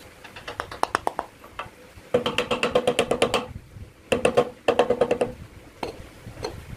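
Wooden file handle knocked butt-down against the wooden bed of a lathe to drive a saw file's tang into it. A few light taps, then three quick runs of sharp knocks, about eight a second, each ringing briefly.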